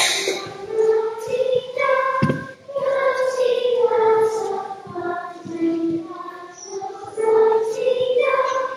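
Children's choir singing, the phrases moving from note to note every second or so. A sharp click sounds right at the start.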